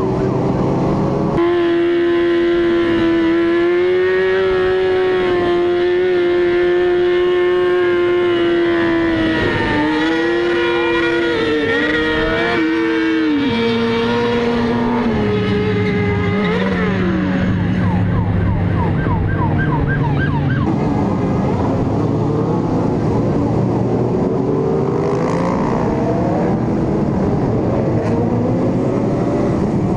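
Sport motorcycle engines running at high revs. The pitch is held steady for several seconds, then steps down a few times and drops away about halfway through. In the second half several bikes rev and pass at once.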